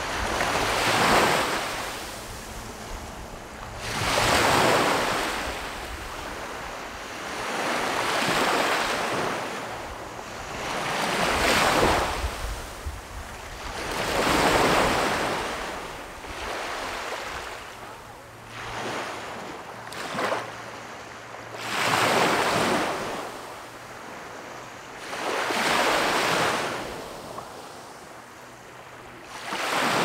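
Small waves breaking and washing up on a sandy beach, one surge every three to four seconds, each rising and falling away, with light wind rumble on the microphone.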